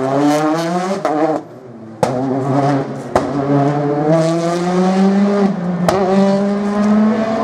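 Rally car engine accelerating hard through the gears. The pitch climbs, then drops at each upshift, about a second in, again around five and a half seconds and near the end. Sharp cracks come in between.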